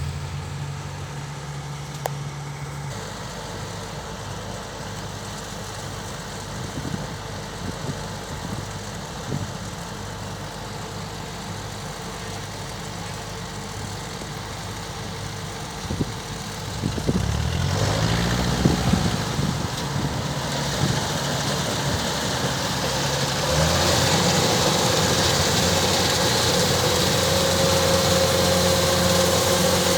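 Kubota DC-105X combine harvester's diesel engine running steadily at low speed. About 17 seconds in, its pitch swings up and down. From about 24 seconds in it runs louder and faster.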